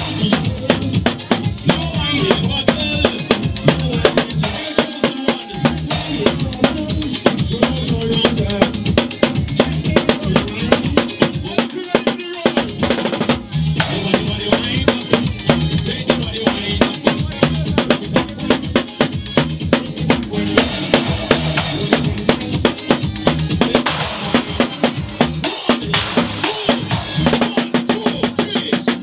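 Drum kit played fast with sticks: a dense run of snare and cymbal hits, with a brief break about thirteen seconds in.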